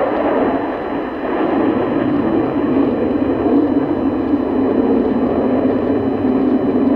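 Loud, rough jet noise from a Sukhoi Su-30 fighter's twin turbofan engines during a display manoeuvre, its deep rumble dropping a little lower in pitch partway through.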